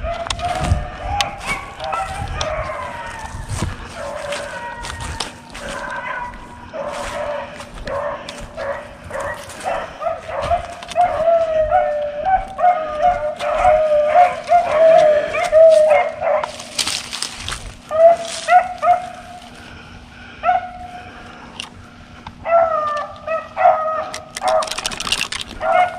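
Pack of beagles baying on a cottontail's trail: long, wavering bawls from several dogs at once, the sound of hounds running a rabbit by scent. Dry brush and leaves rustle close by.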